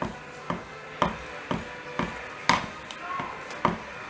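A utensil knocking against a container in an even rhythm, about two sharp knocks a second, typical of soap batter being stirred in a cup or bowl.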